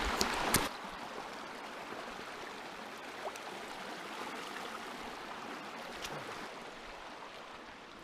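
A small stream flowing with a steady, even rushing that fades a little toward the end. A couple of sharp knocks come in the first second.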